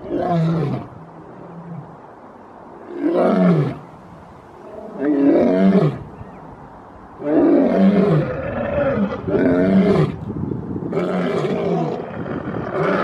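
Two male lions roaring. Single roars about a second long come near the start, at about three seconds and at about five seconds, then a denser run of overlapping roars begins about seven seconds in.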